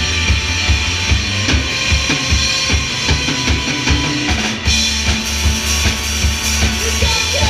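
Live rock band playing an instrumental passage: electric guitars over a drum kit with steady kick and snare hits, the music breaking off for an instant about halfway through.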